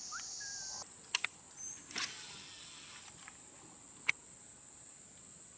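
Steady high-pitched buzzing of insects, its pitch stepping up slightly just under a second in, with a few sharp clicks scattered through, the loudest about four seconds in.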